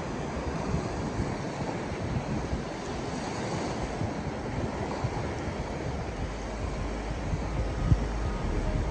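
Ocean surf washing onto the beach, with wind buffeting the microphone. A single brief knock comes near the end.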